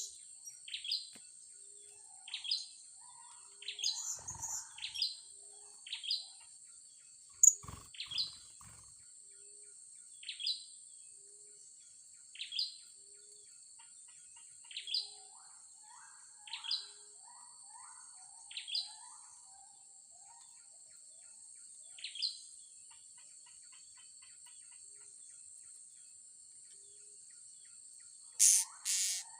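Blue-crowned hanging parrots giving short, sharp, high calls that drop in pitch, one every second or two, with softer lower chirps later on, over a steady high insect whine. Two loud sharp noises come near the end.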